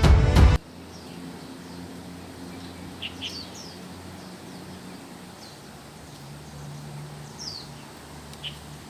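Intro music cuts off about half a second in, then a wild sikatan londo (flycatcher) gives sparse, short, high chirps, each sliding down in pitch, over a steady faint outdoor background.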